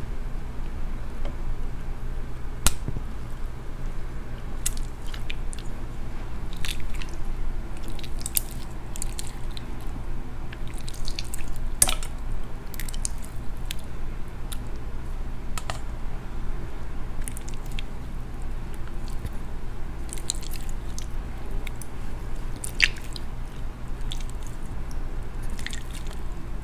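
Orange slime squished and pulled in the hands, giving scattered wet squelches and sticky clicks over a steady low hum.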